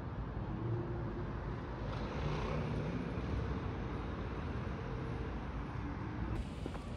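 Outdoor street ambience: a steady hum of distant road traffic.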